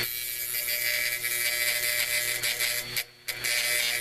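A small round cutting blade held against sandpaper on a spinning hard-drive platter, a steady abrasive hiss of the edge being sharpened, over the steady hum of the running hard drive. The sound drops out briefly about three seconds in.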